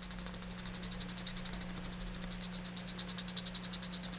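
Fast back-and-forth sanding of a leather edge with 320-grit sandpaper: an even scratching of about nine strokes a second over a low steady hum.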